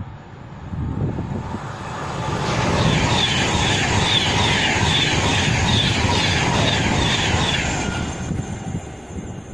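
A train passing through the station on the main line, its noise swelling, holding for about five seconds with a regular clatter of wheels at roughly two beats a second, then dying away.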